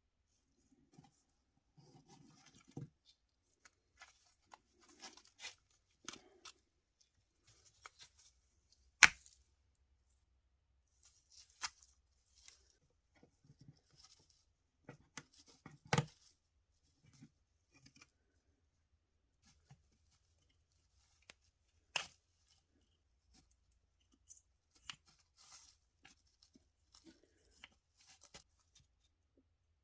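Close-up hand work on a small diecast model car: scattered short scraping and tearing sounds with light clicks, broken by a few sharp knocks of metal or plastic parts, the loudest about a third of the way in.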